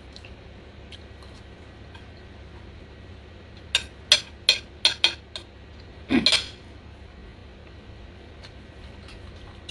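Metal fork and spoon clinking and scraping against a plate: about six sharp clinks in quick succession around the middle, then a short, longer scrape.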